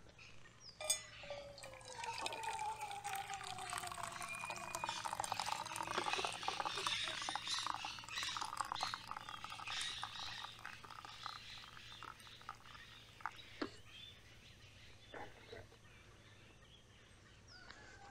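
Hot coffee poured from a lidded titanium pot into an enamel camping mug: a steady pour of about ten seconds, starting just after a sharp clink about a second in. A few light knocks follow near the end.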